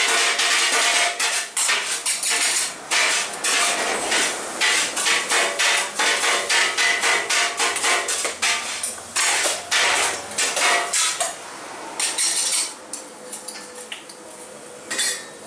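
Small metal hopper pans, their lids and a metal spatula clanking and knocking as they are handled over the burners. The knocks come fast and irregular, then thin out in the last few seconds.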